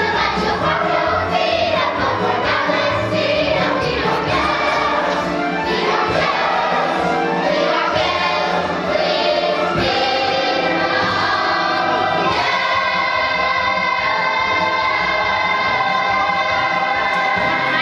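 A youth choir singing with musical accompaniment, the voices moving through a melody and then holding a long sustained final chord for the last five seconds or so.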